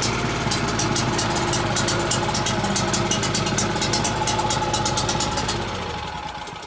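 Champion portable generator's gasoline engine running steadily just after an electric start, then running down and dying near the end. The owner puts the stalling down to not yet having the choke setting right.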